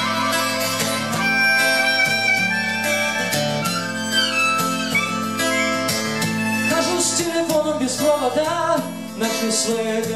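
Harmonica playing a melody into a microphone over a steadily strummed acoustic guitar. The lead line wavers and bends in pitch in the later part.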